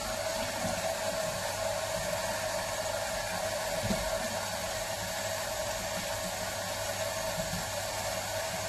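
Steady whirring noise with a low hum, like a small fan motor running, at an even level; a soft knock about four seconds in.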